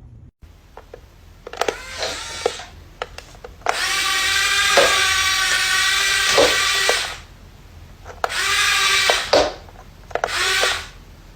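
A small electric motor whining steadily in four bursts, the longest about three seconds, with a few knocks in between.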